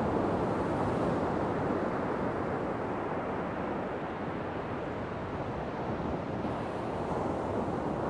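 Ocean waves washing on the shore: a steady rush of surf, easing a little in the middle and building again near the end.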